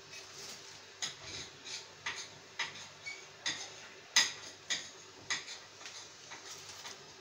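A run of light, sharp clicks or taps, roughly two a second and unevenly spaced, the loudest just after four seconds in.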